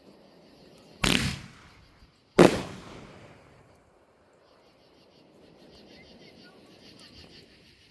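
Two firework explosions about a second and a half apart, the second the louder, each a sharp bang that dies away over about a second.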